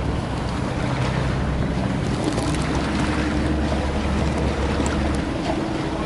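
Engine of a car ferry running with a steady low drone as the ferry comes in to berth, with wind on the microphone and water noise. The low drone drops away about five seconds in.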